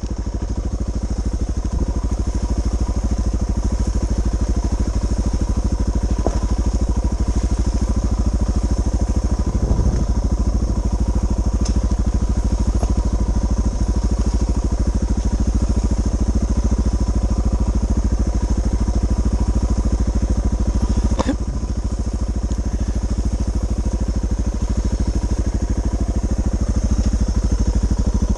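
Suzuki DR650's big single-cylinder engine running steadily at an even pace, with a sharp click about 21 seconds in.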